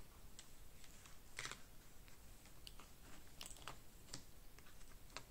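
A scattering of faint light clicks and taps as small wrapped watercolour half pans are lifted out of a cardboard box and set down one by one on a paper pad.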